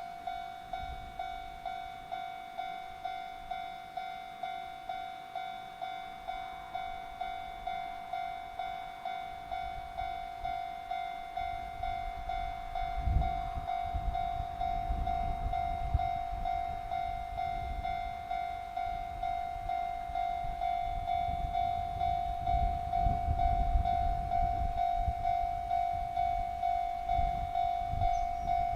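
Japanese level-crossing warning bell ringing its even electronic ding about one and a half times a second. From about halfway through, a freight train's low rumble comes in with the knock of wheels over rail joints, growing louder toward the end.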